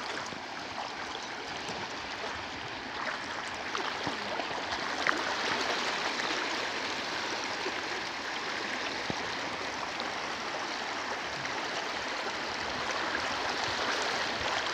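Floodwater rushing and spilling over a ledge in a shallow cascade: a steady, even rushing.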